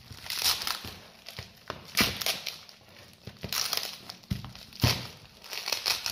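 Clear plastic vacuum-bagging film crinkling and sticky bagging tape crackling as they are peeled off and crumpled by hand, in irregular bursts. There are a few sharp snaps, the loudest about five seconds in.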